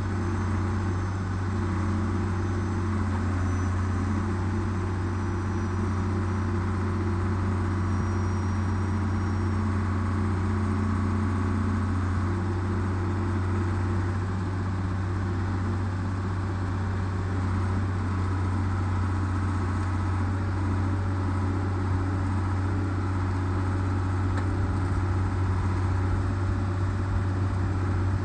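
An engine idling steadily with a deep, unchanging hum.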